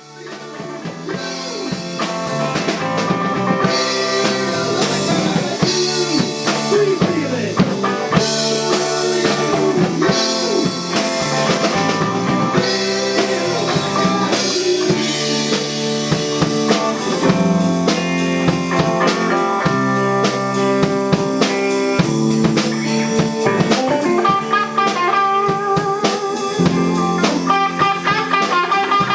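Overdriven electric guitar solo from a 1986 Gibson ES-335 through a Maxon OD9, Fulltone Deja Vibe and delay into a 1974 Fender Deluxe Reverb, full of string bends and vibrato, with a rock band's drum kit playing behind it. The music fades in over the first second or two.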